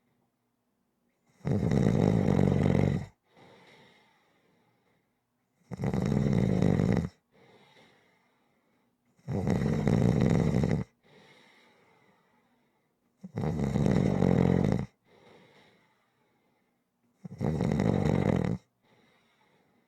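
A sleeper snoring in a steady rhythm: five loud snores about four seconds apart, each followed by a softer breath.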